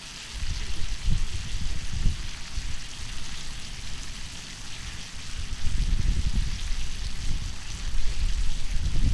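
Thick-cut beef tongue sizzling on a hot iron griddle plate, a steady crackly hiss. A low rumble comes and goes over it, about a second in and again from about five and a half seconds.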